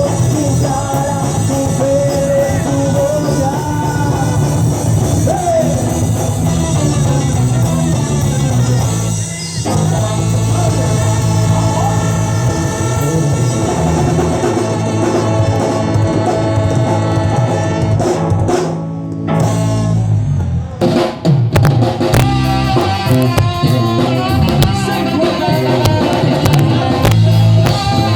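A ska band playing live, loud, with drum kit and a steady bass line driving the beat, in a rough amateur recording. The music thins out briefly a few times past the middle before the full band comes back in.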